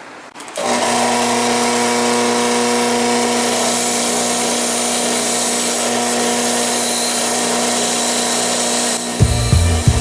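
An electric power tool switches on about half a second in and runs at a steady speed with a steady hum. Near the end, music with a regular low beat comes in over it.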